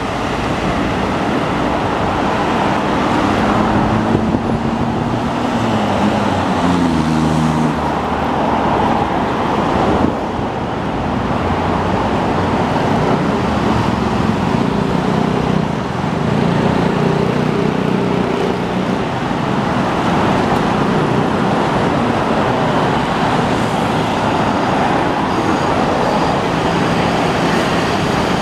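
Steady urban road traffic: cars and larger vehicles moving through a busy intersection, with engine tones from passing vehicles, one shifting in pitch about seven seconds in.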